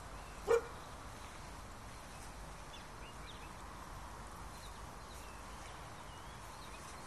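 Quiet outdoor ambience with faint, scattered bird chirps. A single short, sharp sound about half a second in is the loudest thing heard.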